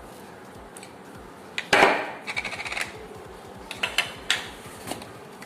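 A spoon clinking and tapping against dishes while salt is spooned into the masala. There is a louder clatter a little under two seconds in, then several short runs of light clicks.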